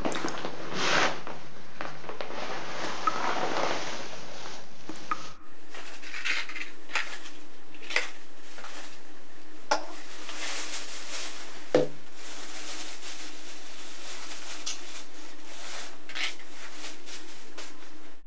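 Clinks and clatters like dishes and utensils being handled. A rushing hiss fills the first five seconds; after an abrupt change, separate sharp clicks and knocks follow at irregular intervals.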